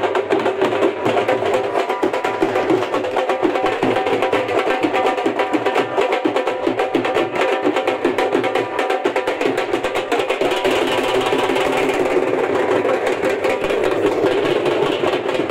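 Dhols beaten in a fast, dense rhythm, with a steady held tone sounding over the drumming.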